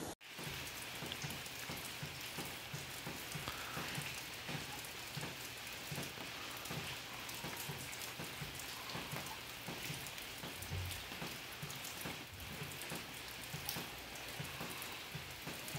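Steady rain falling: an even hiss of rainfall dotted with many small drop ticks.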